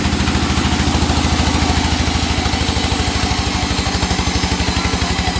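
Engine of a timber sawmill running steadily with a rapid, even pulsing beat.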